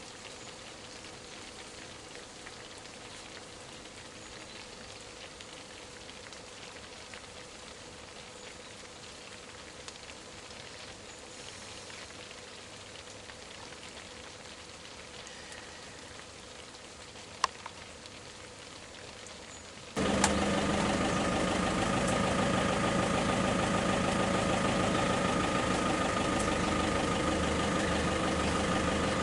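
A steady faint hiss with a single sharp click, then an abrupt switch about two-thirds in to a vehicle engine idling loudly and steadily close by.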